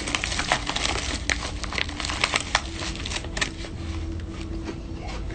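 A paper bag crinkling and rustling as it is handled, a quick run of crackles that thins out after about three and a half seconds.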